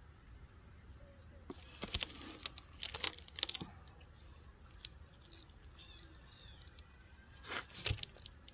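Fishing rod with a spinning reel being lifted from a metal rod holder and handled to bring in a hooked fish: clusters of clicks and rattles about two seconds in and again near the end.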